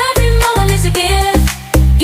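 Background music: an electronic pop track with a steady pulsing bass beat and a melody line over it.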